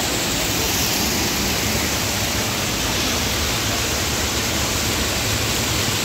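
Water rushing over rocks in a shallow mountain stream's small cascades: a steady, even hiss.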